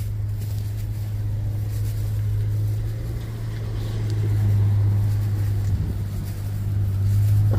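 A steady low hum, swelling louder about halfway through and again near the end.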